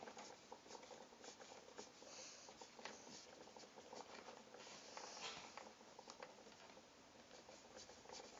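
Faint soft taps, clicks and rustling of hands working Play-Doh on a table.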